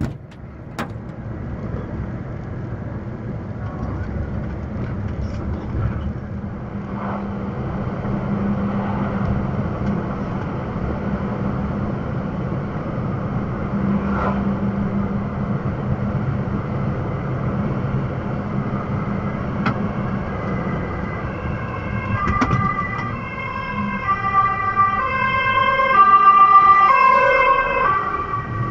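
Steady low drone of a truck under way, then from about two-thirds in an ambulance siren stepping between pitches, growing louder as the ambulance comes close and passes.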